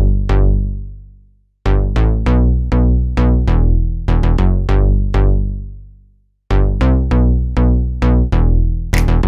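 Electronic intro music: phrases of punchy drum-machine and synth notes with heavy bass, each phrase fading out into a brief silence before the next starts, about 1.7 s and 6.5 s in.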